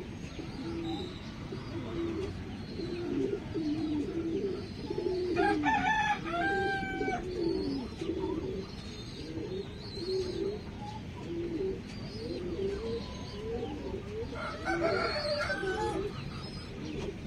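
A rooster crowing twice, about six seconds in and again near the end, over a steady run of low calls from the poultry flock.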